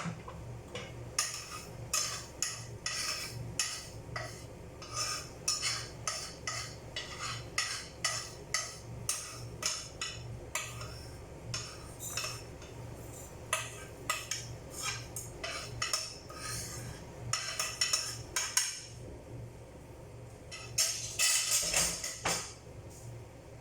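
A metal utensil working in a cooking pan, clattering and scraping against it about two to three times a second, with a longer, louder rattle a little before the end. A steady low hum runs underneath.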